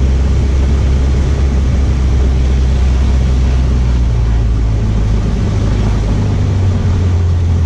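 Cessna 152's four-cylinder Lycoming O-235 engine running at low taxi power, heard from inside the cockpit as a steady low hum.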